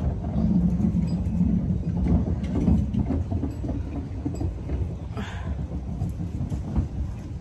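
Low rumble of a motor vehicle's engine running close by, loudest in the first three seconds and then easing off.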